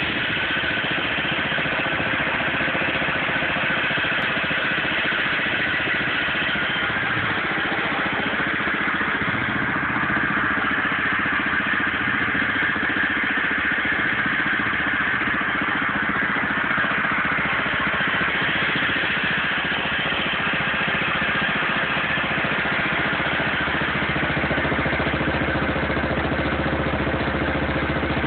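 Sears garden tractor's Subaru engine idling steadily, with an even drone that stays at one pitch throughout and gets a little deeper and fuller near the end.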